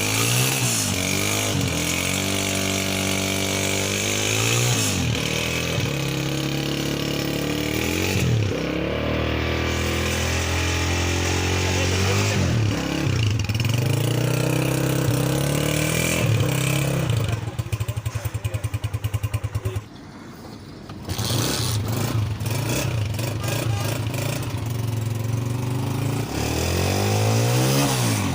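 Honda CG125's single-cylinder four-stroke engine being revved up and down again and again with throttle blips. For a couple of seconds past the middle it settles to an even idle, dips briefly, then revs again.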